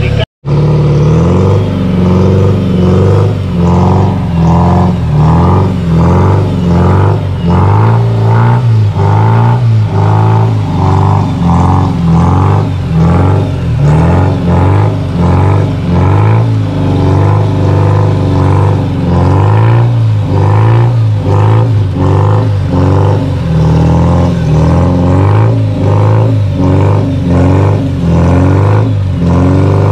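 Off-road 4x4's engine revving hard under load, the throttle pulsing roughly once a second, as the vehicle struggles through deep mud.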